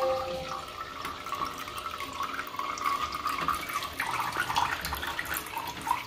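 Water trickling and splashing as it pours from the pot-shaped spouts of a tiered tabletop fountain into its basins.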